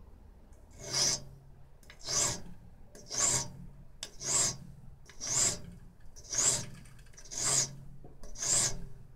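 Hand file working a small steel part clamped in a bench vise: eight even strokes, about one a second, starting about a second in.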